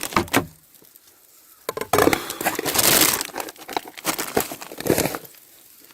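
Crinkling and rustling handling noise, with a few clicks at first and then a loud, dense crackly stretch lasting about three seconds.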